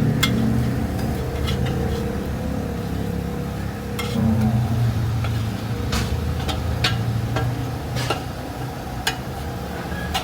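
Fried rice being stir-fried in a wok, a metal spatula clanking and scraping against the pan at irregular intervals, with sizzling. A steady low rumble runs underneath.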